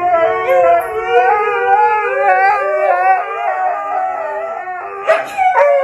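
Huskies howling in long, wavering, overlapping howls. The howling breaks briefly with a sharp noise about five seconds in, then resumes.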